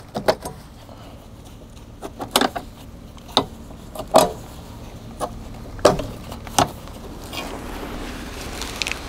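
Sharp metallic clicks and clanks, about nine spread irregularly over the first seven seconds, from hands handling the metal parts at the side of a compact tractor by its front-loader mount and hydraulic quick couplers, with the engine off.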